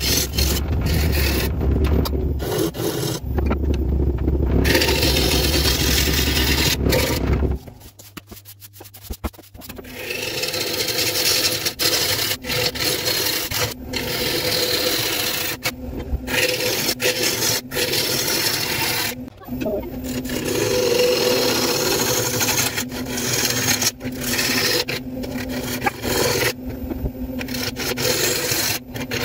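Turning tool cutting a spinning bowl blank of green, wet spalted ash on a wood lathe: a steady rasping scrape that breaks off briefly whenever the tool lifts from the wood, over the hum of the running lathe. It drops away for about two seconds around eight seconds in, then resumes.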